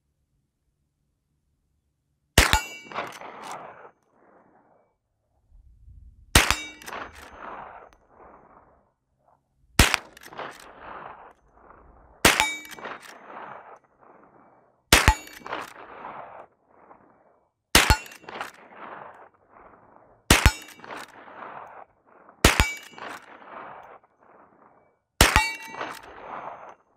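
A Rossi R92 lever-action rifle chambered in .357 Magnum fires .38 Special +P rounds: nine shots, one every two to four seconds. Each report has a short metallic ring and an echoing tail that dies away over about a second.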